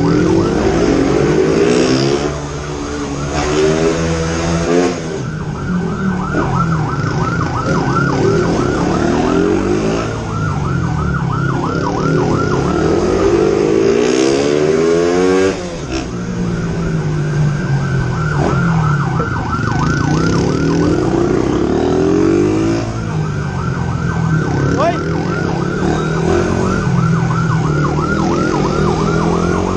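Police motorbike siren in a fast yelp, about four cycles a second, over a motorbike engine revving up and dropping back again and again at speed.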